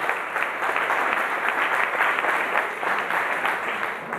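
Audience applauding, many hands clapping at once, dying away at the very end.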